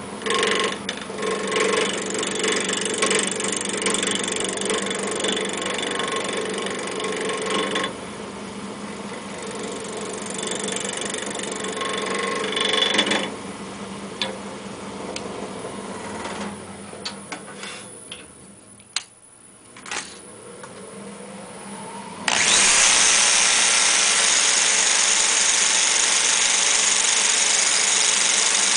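Wood lathe turning an off-axis pen blank, with a turning tool cutting the spinning wood in loud, uneven scraping passes. Past the middle the cutting stops, the lathe's pitch glides and there are a few clicks and knocks. About three-quarters through, a loud steady rushing noise starts abruptly.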